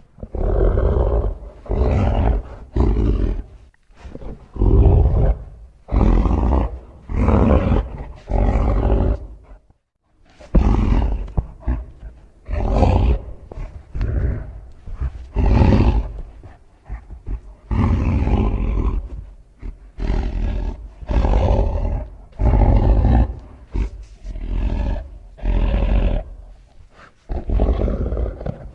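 Varan, the Toho kaiju's film roar sound effect: a long series of short, loud roars, about one every second, with a brief silence about ten seconds in.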